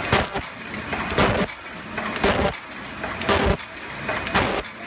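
MB-C12 medium-speed paper cup forming machine running, a loud mechanical clatter repeating about once a second with lighter knocks between.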